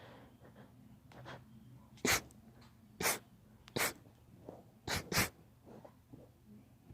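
A girl sneezing over and over in a fit of allergy sneezes: about five sharp sneezes a second or so apart, the last two back to back.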